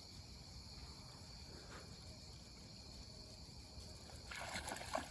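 Steady chorus of crickets, a high thin trilling. About four seconds in, water splashing and sloshing begins as a small channel catfish is brought to the bank.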